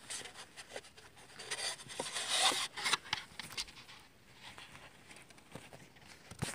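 A towel rubbing and scrubbing against a woven fabric car seat: a rustling, scraping noise with small clicks, loudest between about one and a half and three seconds in.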